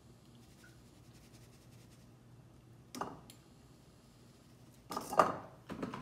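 Cookware being handled on a kitchen counter: a single knock about three seconds in, then a louder cluster of clattering knocks near the end.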